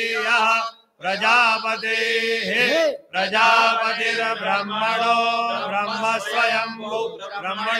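Men chanting Sanskrit mantras into microphones in a steady, melodic recitation, with two brief breaks for breath about one second and three seconds in.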